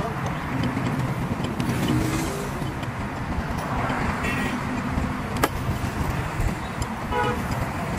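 Steady rumble of motor vehicles, with one sharp knock about five and a half seconds in.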